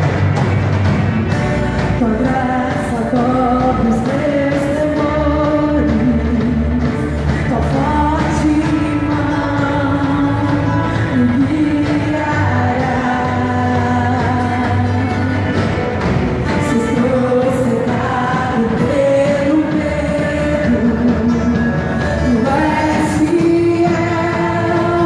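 Live worship band playing, with a voice singing a melody line over it.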